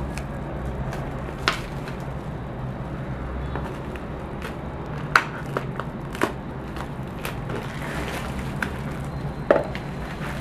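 Plastic wrapping rustling and crinkling as it is pulled off a keyboard box, with a few sharp crackles and knocks from the box being handled, over a steady low hum.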